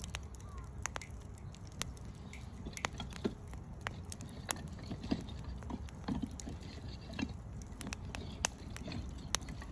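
Firewood burning in a fire pit, crackling with irregular sharp pops over a steady low rumble.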